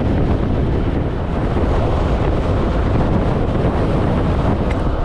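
Steady, loud wind rush over a motorcyclist's microphone while riding at speed, with road noise underneath.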